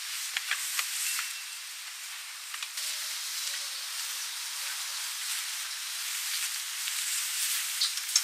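Hot oil in a wok sizzling around a small piece of batter: a steady hiss with scattered sharp crackles and pops, getting busier near the end.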